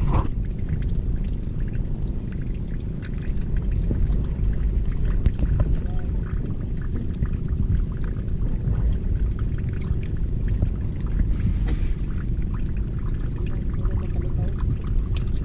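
A small motorboat under way: a steady low rumble of engine and wind on the microphone, with water splashing and rushing along the hull.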